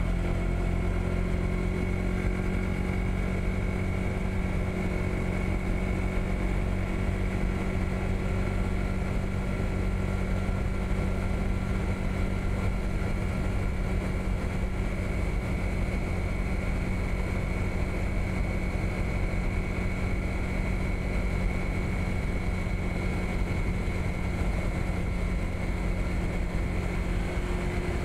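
Honda PCX160 scooter's single-cylinder engine running at a steady cruising speed, its pitch holding even, over a continuous low rush of wind and road noise on the action camera's microphone.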